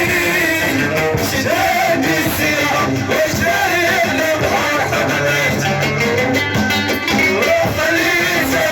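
Moroccan chaabi song performed live: a voice singing a wavering melody over plucked strings and band accompaniment.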